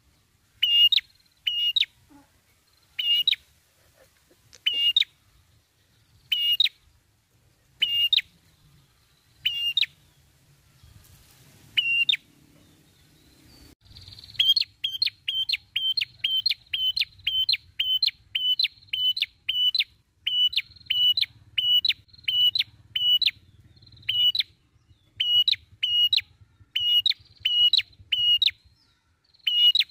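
Ashy tailorbird (prenjak kepala merah) calling loudly in sharp, high chip notes. At first they come in short clusters of two or three every second or two. About halfway through they become a steady, fast run of about two notes a second.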